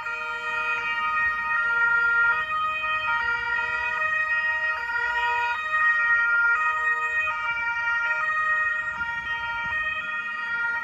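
Several Italian police car two-tone sirens sounding together, each switching between a high and a low note a little under once a second, out of step with one another.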